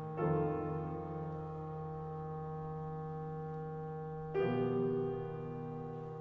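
Contemporary chamber music from a quartet of clarinet, violin, cello and piano playing held chords. New chords enter sharply about a quarter second in and again after about four seconds.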